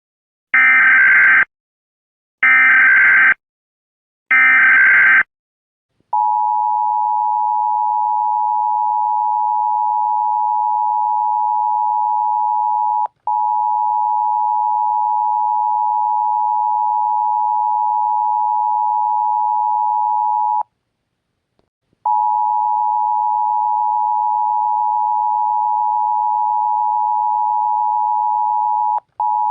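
Emergency Alert System tones: three one-second bursts of the screeching digital SAME header, then the steady two-tone EAS attention signal. The attention tone drops out briefly about 13 s in, pauses for about a second and a half near 21 s, and drops out again briefly near the end.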